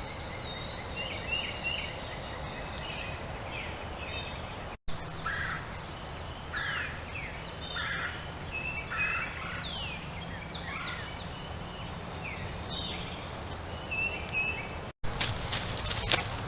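Several wild birds calling and singing: short chirps, falling sweeps and one long steady whistle, over a low steady hum. After a brief dropout near the end, a run of sharp clicks or rustles is louder.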